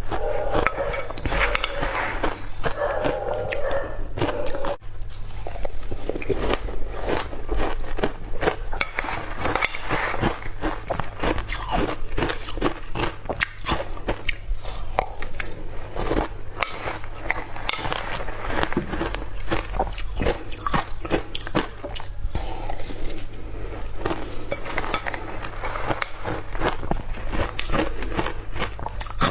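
Ice being bitten and crunched between the teeth, a dense run of crisp cracking crunches, bite after bite, over a steady low hum.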